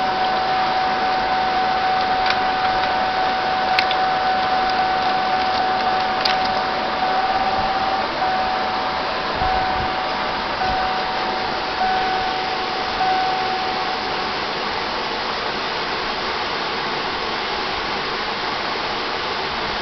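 Steady loud hiss with a steady high electronic tone over it. About seven seconds in the tone starts cutting in and out in short beeps, and it stops about fourteen seconds in, leaving only the hiss. A few faint clicks come in the first seven seconds.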